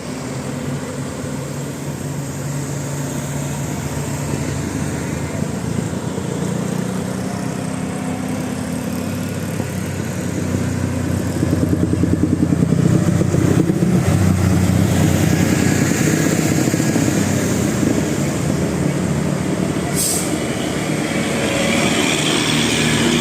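Road traffic with a large bus's engine running as it passes; the engine gets louder about halfway through, with a fast pulsing, then eases off. A single sharp click near the end.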